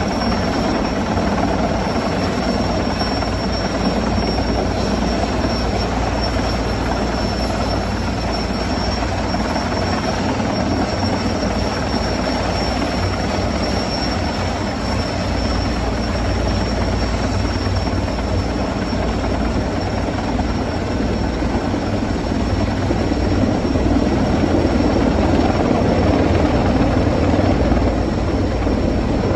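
Sikorsky S-64 Skycrane heavy-lift helicopter hovering with a slung load: steady, loud rotor and turbine noise with a thin high whine on top, growing a little louder near the end.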